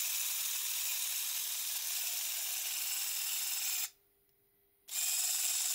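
Small N20 geared DC motor running on 5 volts and driving a 3D-printed micro linear actuator, a steady high whir as the rod moves. It stops for about a second nearly four seconds in, then runs again.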